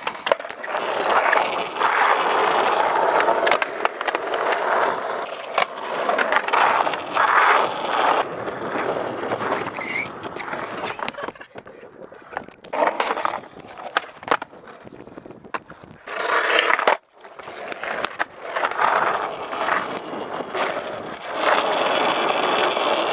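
Skateboard wheels rolling over asphalt and ramps, swelling and fading as the boards pass, with sharp clacks and knocks of board pops and landings. The sound breaks off abruptly once, about two-thirds of the way through, before the rolling starts again.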